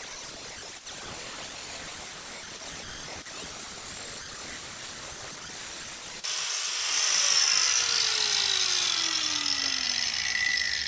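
Electric angle grinder grinding down a flux-core weld on a steel body panel. The grinding turns much louder and harsher about six seconds in as the disc bites into the weld, with a falling tone under the noise.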